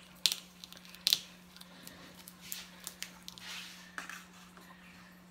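Plastic shrink-wrap crackling and crinkling as it is slit with a small knife and pulled off by hand, with two sharp crackles about a third of a second and a second in, then softer crinkling and a few light ticks.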